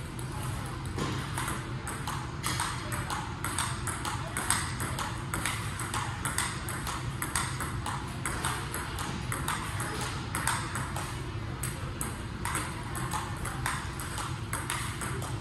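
Table tennis balls clicking off rubber bats and the table in a rapid, even string, several hits a second, as balls are fed one after another from a basket in a multiball drill, over a steady low hum.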